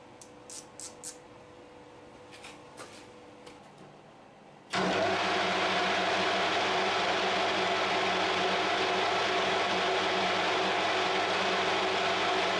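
A few light metallic clicks from tools being handled at the lathe, then a little under five seconds in the metal-turning lathe is switched on and runs steadily at speed, a constant mechanical whirr with an even hum from its motor and gearing.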